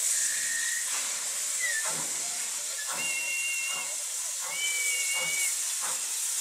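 Steam locomotive hissing steam and starting to pull away, with slow exhaust chuffs about once a second. A few short, high, steady tones sound over it, two of them held for about a second each.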